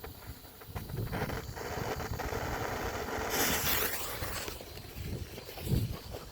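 Homemade black-powder rocket igniting: a brief hiss a little over three seconds in, over a low rumbling background, with a short low thump near the end.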